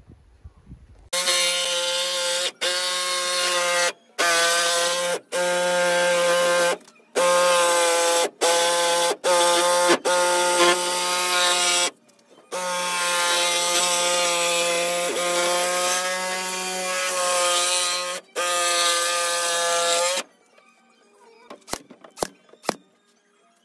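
Power tool motor running at one steady pitch in about ten trigger-pull runs of one to six seconds with short pauses between, the longest near the middle. A few faint sharp clicks follow near the end.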